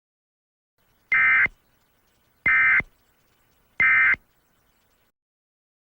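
Three short bursts of Emergency Alert System digital data tones, each under half a second and about a second apart: the SAME end-of-message signal that closes an alert.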